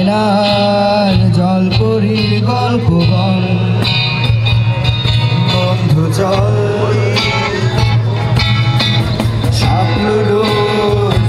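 A live acoustic band, with acoustic guitars, a sitar and a cajon keeping a steady beat, while a man sings into a microphone.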